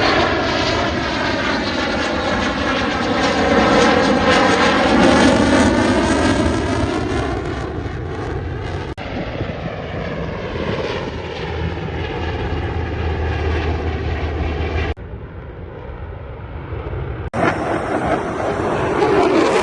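Fixed-wing airplane flying past, a loud engine roar whose tone sweeps as it passes. The sound changes abruptly three times where the footage is cut between passes.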